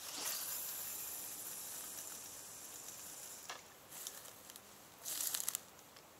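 Fishing line hissing off the reel's spool during a long cast, starting suddenly and fading over about three and a half seconds before stopping with a sharp click. A few short crackling clicks follow near the end.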